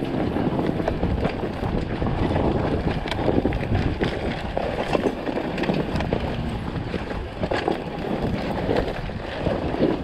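Enduro dirt bike rolling slowly down a rutted dirt track, with an irregular clatter of bumps and knocks. Wind buffets the helmet microphone throughout.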